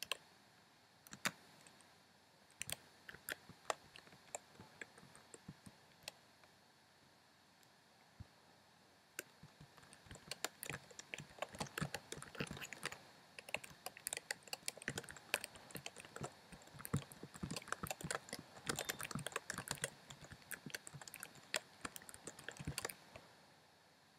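Computer keyboard typing: a few scattered keystrokes at first, then, about ten seconds in, fast and continuous key-mashing of random letters that stops shortly before the end.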